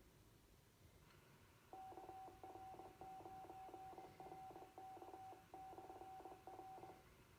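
Amateur radio repeater sending its Morse code identification over the receiver: a single faint tone keyed on and off in dots and dashes. It starts about two seconds in and lasts around five seconds.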